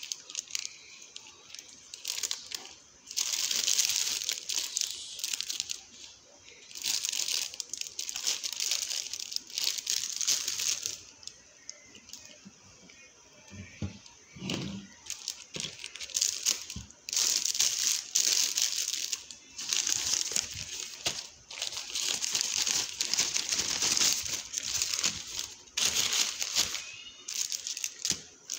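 Plastic grocery packaging crinkling as it is handled, in repeated bursts lasting a second to a few seconds each.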